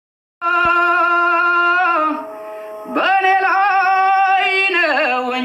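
A single voice singing long, drawn-out held notes with a slight waver in pitch, starting after about half a second of silence and dipping softer in the middle.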